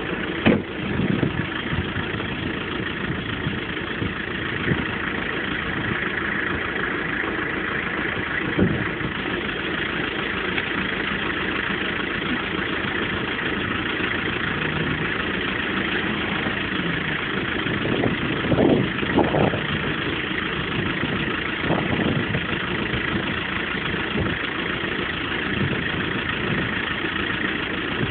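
Off-road 4x4 engine running steadily at idle, with a few brief louder surges or knocks, the clearest pair about two-thirds of the way through.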